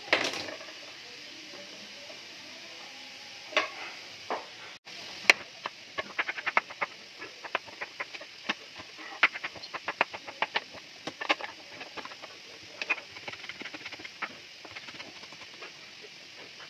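Kitchen knife chopping potato and green capsicum on a plastic cutting board: a fast, irregular run of sharp taps as the blade strikes the board, with a few separate knocks before the chopping picks up.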